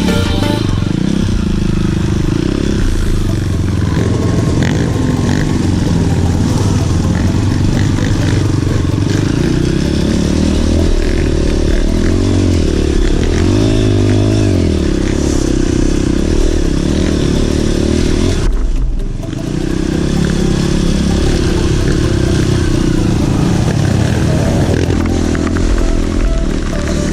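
Off-road trail motorcycle engines running and revving, loud and continuous, with the pitch rising and falling.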